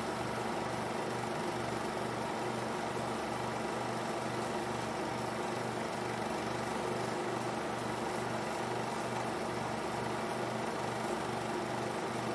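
16mm film projectors running: a steady mechanical whir with a low pulse about three times a second.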